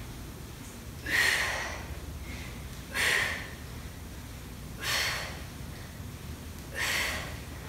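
A woman breathing out hard four times, about every two seconds, once on each rise from a banded bodyweight squat.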